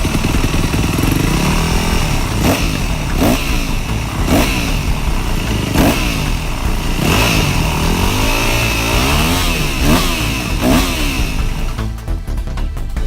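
Japanese motorcycle engine running on a carburetor rebuilt with a repair kit, blipped about seven times so the revs jump and fall back; the blips come closer together near the end.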